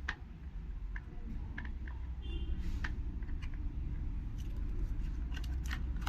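Scattered light clicks and taps of small hard parts being handled, a dozen or so at uneven intervals, over a steady low rumble.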